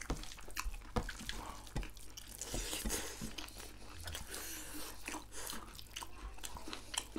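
Close-miked eating by hand: many short wet clicks and smacks of chewing and lips as rice and fried goat meat are eaten, with fingers mixing rice on metal plates.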